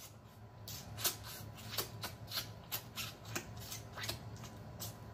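Close-up wet mouth sounds of a man licking and sucking his fingers: irregular sharp lip smacks and sucking clicks, about two a second.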